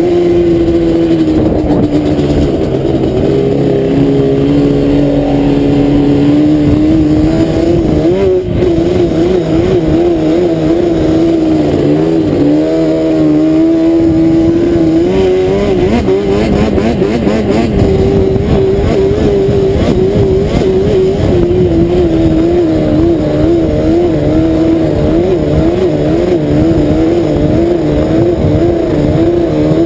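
ATV (quad) engine running hard while riding over sand, its pitch rising and falling with the throttle, with a brief break about eight seconds in.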